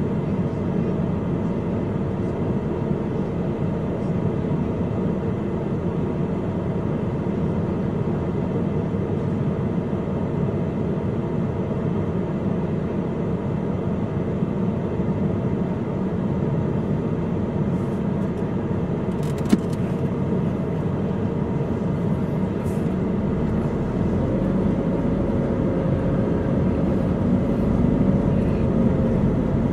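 Car engine and traffic rumble heard from inside the car's cabin, steady while it waits in a traffic queue. Near the end the low rumble grows as the car pulls away. There is a brief click about two-thirds of the way through.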